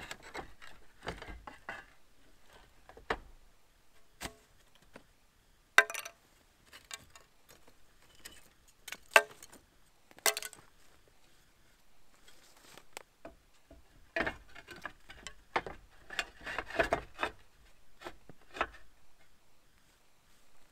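Hard clinks, scrapes and knocks of tiles being handled and set down, with three sharp clacks in the middle stretch.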